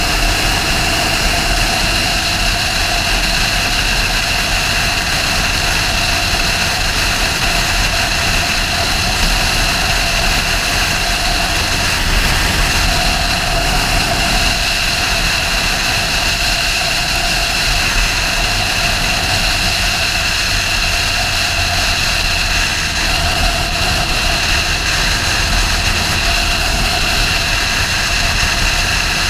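Sportbike riding at a steady speed: a constant rush of wind on the microphone over the engine's even running, with no change in pitch or level.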